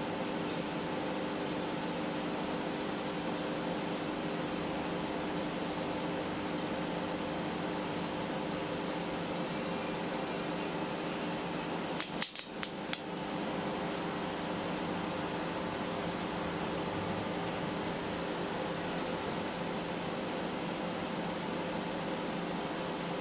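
Microwave oven running with a steady hum while a sealed-beam headlamp inside arcs, crackling and sizzling with a sharp snap about half a second in. The crackling grows denser near the middle, then breaks off abruptly, leaving the hum and a steady high hiss.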